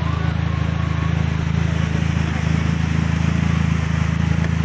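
Steady low engine hum, like a car idling close by, holding one even drone with no revving.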